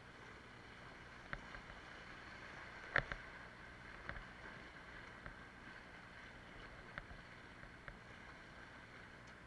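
Kayak paddling on a whitewater river: a steady rush of moving water with a handful of short sharp knocks, the loudest about three seconds in.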